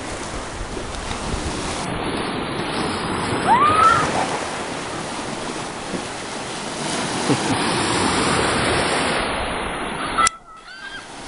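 Sea waves breaking and washing through the shallows: a steady rush of surf. A short rising cry, likely a voice, comes about three and a half seconds in, and the sound drops off suddenly a little after ten seconds.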